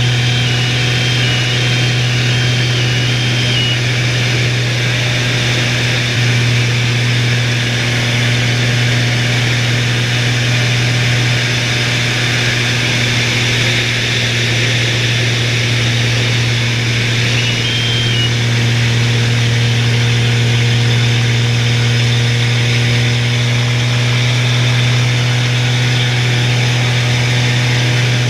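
Extra 300L's six-cylinder Lycoming engine and propeller in flight, heard from inside the cockpit as a loud, steady low drone.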